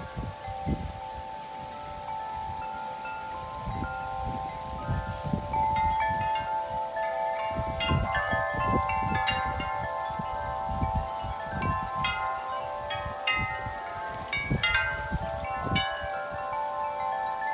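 Metal wind chimes ringing continuously in strong gusty wind, many overlapping tones struck again and again. Wind rumbles on the microphone in gusts, and both grow louder about four seconds in.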